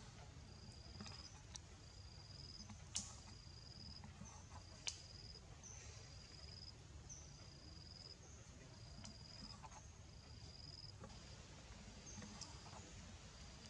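Insect calling in an even rhythm: a high buzzing note a little under a second long, repeated roughly every second and a quarter. Two sharp clicks stand out about three and five seconds in.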